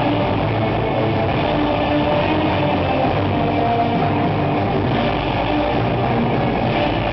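Loud amplified music for the dancers' show, with held notes over a dense, muddy rumble.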